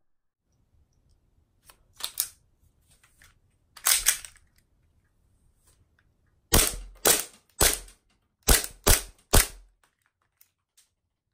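Glock-style airsoft pistol's slide being racked, sharp plastic-and-metal clacks as the slide is pulled back and snaps forward. A few single clacks come first, then a quicker run of six louder ones.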